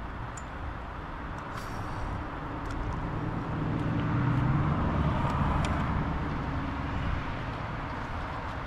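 A road vehicle passing by: its low tyre-and-engine rumble swells to a peak about halfway through and fades away, over a steady outdoor hiss.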